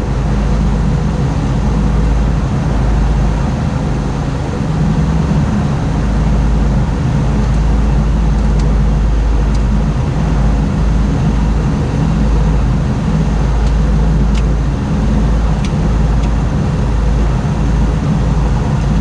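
Steady drone of a Piper Navajo Panther's twin piston engines and propellers heard inside the cockpit in flight, with a few faint ticks near the end.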